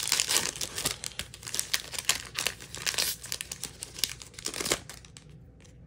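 A Magic: The Gathering booster pack's foil wrapper being torn open and crinkled in the hands: a dense run of sharp crackles that dies down about five seconds in.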